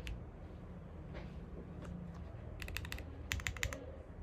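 Typing on a Zoom65 v2.5 mechanical keyboard with lubed Gateron Milky switches: a few scattered keystrokes, then two quick runs of keypresses in the second half.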